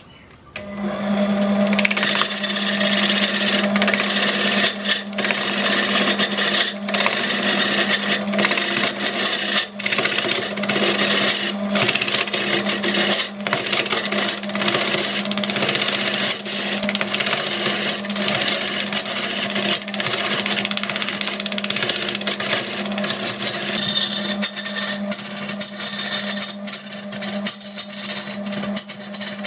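Burt wood lathe spinning a large log while a gouge cuts into it. There is a steady hum, a dense rush of cutting noise, and frequent irregular knocks as the tool meets the turning wood. The sound comes on suddenly about half a second in.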